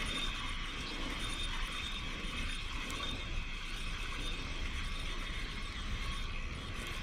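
A Daiwa N'Zon feeder spinning reel being wound steadily, its gears and rotor running as line is retrieved.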